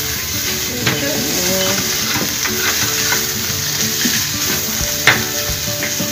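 Ground spice paste and bruised aromatics sizzling in hot oil in a nonstick frying pan, stirred and pushed around with a silicone spatula, sautéed until fragrant. The spatula knocks sharply against the pan about a second in and again about five seconds in.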